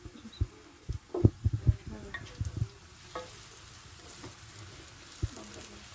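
Diced onion and carrot frying in oil in a deep pan, with a faint steady sizzle. A spatula stirs them, scraping and knocking against the pan several times in the first three seconds and once more about five seconds in.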